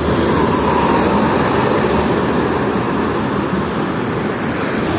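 Buses driving past on a highway: a steady rush of engine and tyre noise with no horn.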